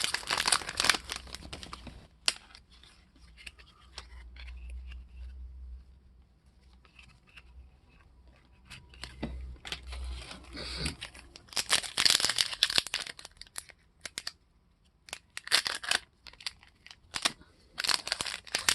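A trading-card pack wrapper being torn open and crinkled by hand, in several short bursts with quieter rustling between. The wrapper is tough to get open.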